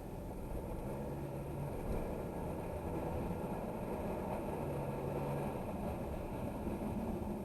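Car driving, heard from the cabin, with a brief low hum about a second in and again around five seconds in as the 7-speed DSG gearbox shifts up. The hum comes only once the gearbox is warm, and the owner wonders whether the clutches are slipping.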